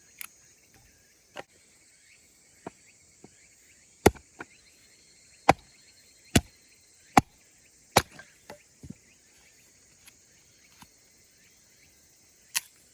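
Firewood being split: about a dozen sharp knocks of a blade striking wood at uneven intervals, over a steady high drone of insects.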